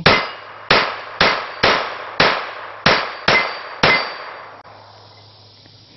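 Eight shots from a Ruger SR22 .22 LR pistol fired at a steady pace of about two a second over four seconds, each with a short sharp crack and a brief ring from the steel target plate being hit.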